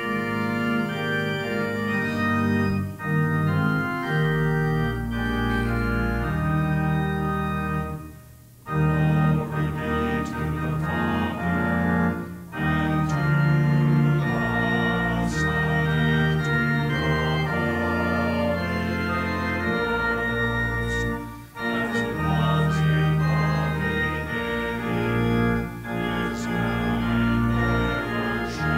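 Organ playing slow, held chords with a strong bass line, pausing briefly between phrases three times.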